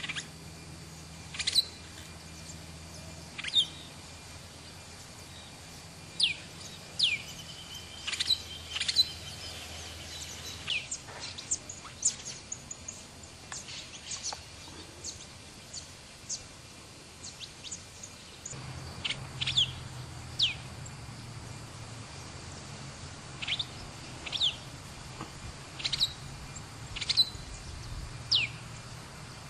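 Brown-and-yellow marshbirds calling: short, sharp notes that slide steeply down in pitch, given every one to two seconds with a few fainter chirps between, over faint steady background noise.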